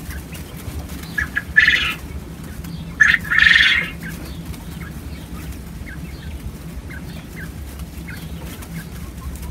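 Quail rooster crowing twice, about one and a half and three seconds in, each crow a short note followed by a longer one, the second crow louder. Faint short chirps follow over a steady low hum.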